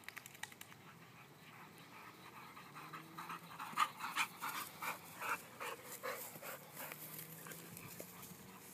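Boxer dog panting hard after running, in quick even breaths about three a second, loudest for a few seconds in the middle as it comes close.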